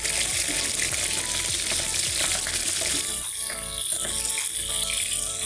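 Chicken skin and garlic frying in hot oil in a pan, a steady sizzle as the fat renders out of the skin to make chicken oil, with background music.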